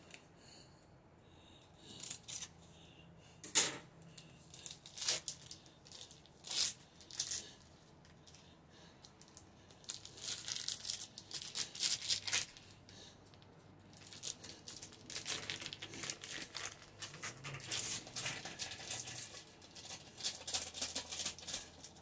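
Foil wrapper of a block of cream cheese being torn and peeled open, crinkling in irregular bursts, with a sharp crackle about three and a half seconds in.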